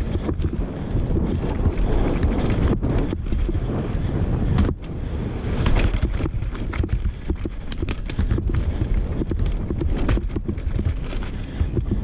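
Wind buffeting the microphone over the rumble of knobby tyres on a rough dirt trail, with frequent rattles and knocks as the downhill mountain bike takes the bumps at speed.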